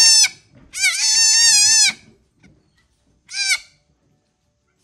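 Newborn buck goat kid bleating loudly: a call ending just after the start, a long wavering bleat of about a second, and a short one near the end.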